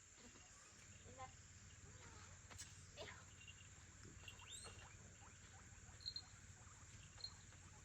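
Near silence with faint, scattered light clicks and taps of a small pet moving about, and a couple of brief high chirps near the end.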